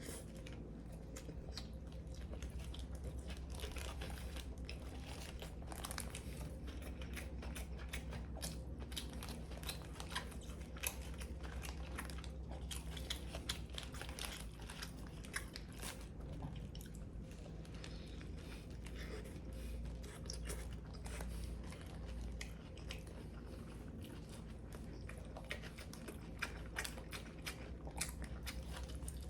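Close-up biting and chewing of a crisply toasted Subway sandwich, with many small crunches of the bread crust.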